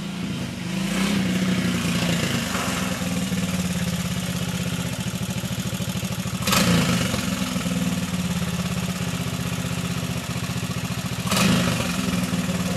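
Vintage trials motorcycle engine idling steadily, with two short throttle blips, one about six and a half seconds in and one near the end.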